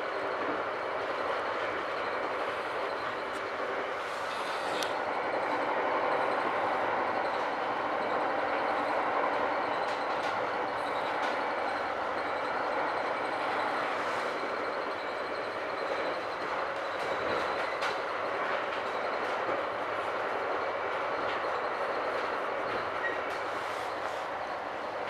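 Steady running noise inside a moving Metra commuter rail car, with a few faint clicks.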